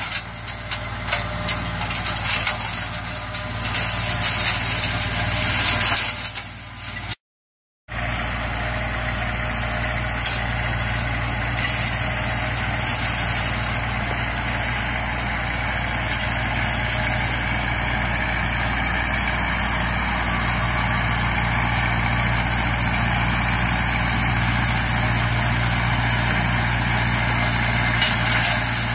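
Compact tractor's diesel engine running steadily under load, driving a rear PTO flail mulcher (Sicma TE 160) that shreds grass, a constant mechanical hum under a rough, crackly shredding noise. The sound cuts out for about half a second around seven seconds in, then carries on the same.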